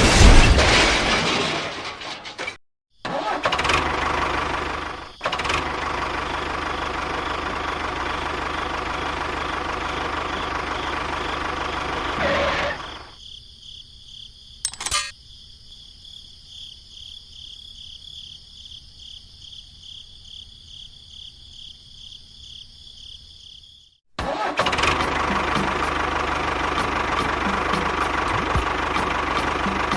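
Small motor of a miniature DIY tractor-type machine running steadily, in several separate clips joined by abrupt cuts. Through a quieter middle stretch a high steady whine takes over, with a sharp click partway through.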